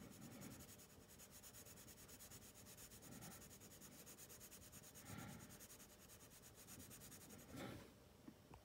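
Colored pencil rubbing faintly across drawing paper in rapid short strokes, laying down a base coat of color; the strokes stop near the end.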